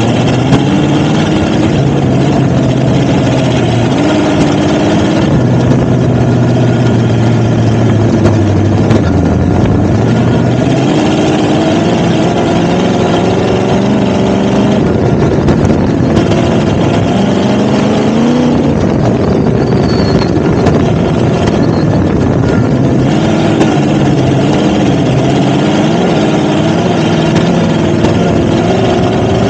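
Off-road vehicle engine running continuously, its pitch rising and falling as the throttle changes.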